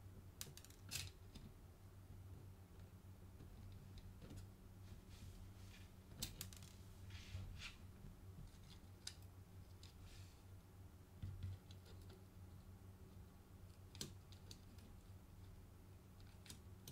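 Faint, scattered clicks and small metallic taps as a small screwdriver and the parts of a Hasselblad 2000FC camera body are handled during disassembly, over a low steady hum.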